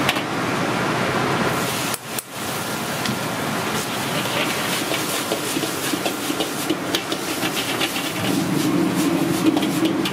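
Stir-frying in a wok on a gas wok range: a steady hiss of the burner and sizzling food, with a metal ladle scraping and knocking against the wok as diced filling is tossed, the knocks thickest in the second half. The noise drops out briefly about two seconds in.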